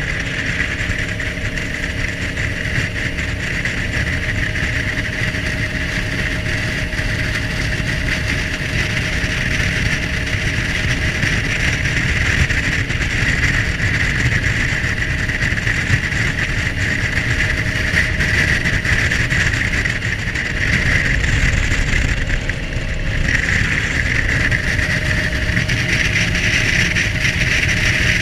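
Jet boat running at speed on a river: steady engine and water-jet noise mixed with rushing water and wind on the microphone. It eases briefly about three-quarters of the way through, then picks up again.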